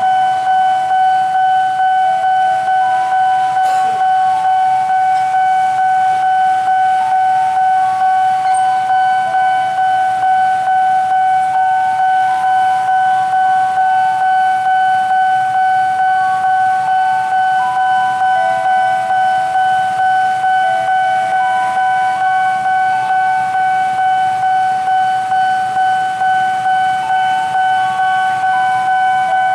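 Railway level crossing warning alarm sounding continuously: a steady electronic tone pulsing about twice a second, with shorter notes stepping up and down in pitch over it, signalling an approaching train.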